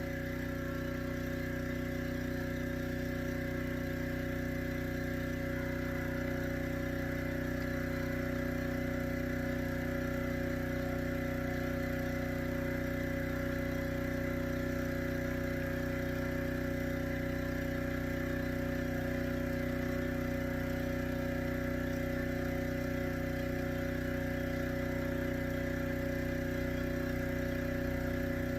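Pressure washer converted into a sewer jetter, its engine running steadily under load while it jets a main sewer line, with a faint low pulse about once a second.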